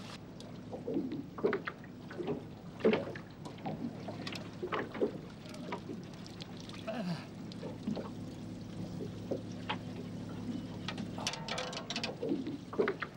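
Water splashing and dripping as a big barramundi is scooped into a landing net and lifted out of the water, with short knocks as the net comes against the boat's side. Underneath runs a steady low hum that cuts off near the end.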